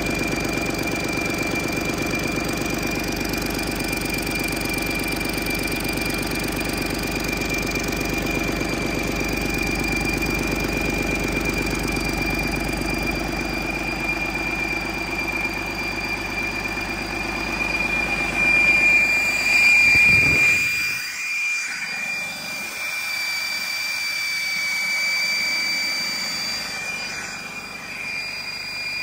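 A 2009 Detroit Diesel DD15 14.8-litre diesel engine running steadily on a test run, with a steady high-pitched whine over its low running note. About two-thirds of the way through, the sound swells briefly, then the low engine note drops away and the whine carries on.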